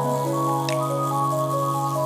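Background music of held notes that change every half second or so.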